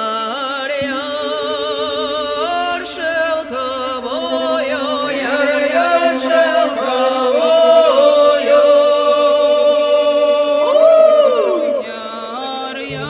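Soundtrack music: a slow folk-style song, voices singing a melody in long held notes with a wavering vibrato over a steady drone. A low bass note comes in near the end.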